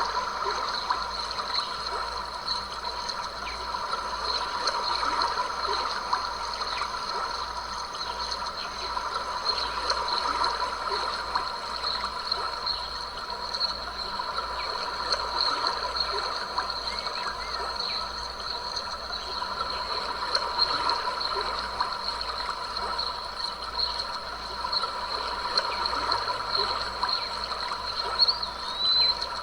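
Stream water flowing, trickling and gurgling steadily, with a steady high-pitched drone above it.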